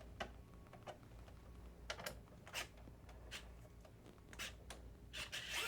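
Light, irregular clicks and taps of a screwdriver and small screws as the screws are taken out of a PS5's board and metal shield, about ten ticks in all.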